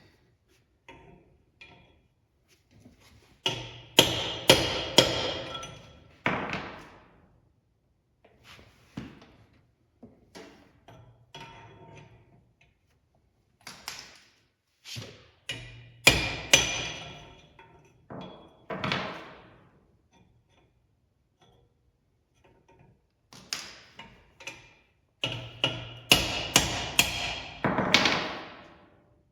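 Bursts of hammer blows on the steel parts of a Dana 70 axle, each strike ringing out. There are three rounds of several hits each, with quiet pauses between them.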